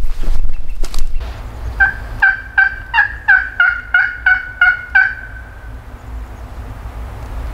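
Turkey yelping: a run of about ten evenly spaced two-note yelps, roughly three a second, starting about two seconds in and ending a little after five seconds. A few sharp knocks come in the first second.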